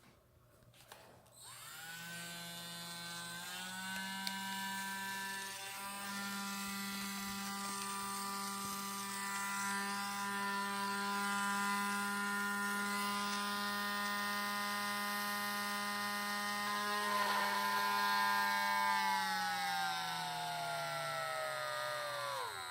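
Small battery-powered Dremel rotary tool whining: it spins up about a second and a half in, runs at a steady high speed while the hole in a plastic turn-signal lens is cut out, then winds down near the end.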